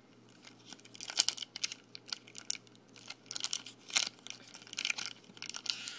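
Foil wrapper of a 2011 Upper Deck SP Authentic trading-card pack crinkling and tearing as it is handled and opened: irregular crackles from about a second in.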